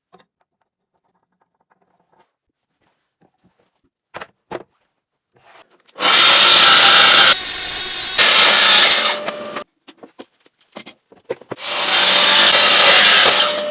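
A power saw cutting through wood twice, each cut a few seconds long with a sudden start, after a couple of light knocks from the wood being handled.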